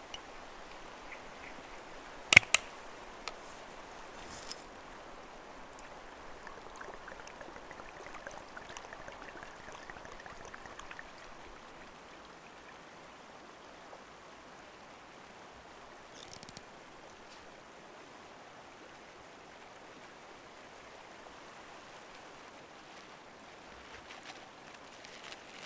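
Steady rushing of running water. A single sharp click about two and a half seconds in, plus a few faint ticks and rustles of small things being handled.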